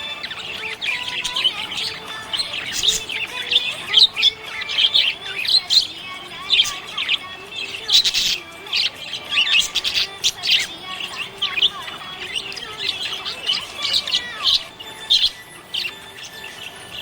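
Budgerigar chirping: a busy, unbroken stream of short high chirps and trills.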